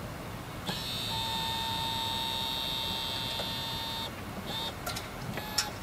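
A steady, high-pitched electronic tone that starts about a second in and holds for about three seconds before cutting off, followed by a couple of short beeps.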